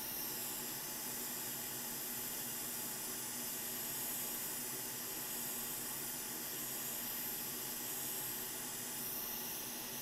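Hot air rework station blowing a steady hiss of hot air onto a flux-covered chip to heat its solder for desoldering.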